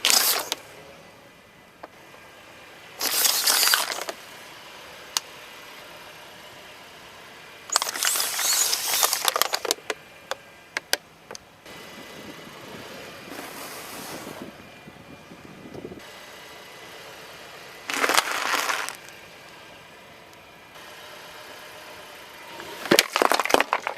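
Car tyres rolling over and crushing brittle objects: a handful of separate bursts of cracking and crunching, the longest about two seconds, with a faint steady background between them.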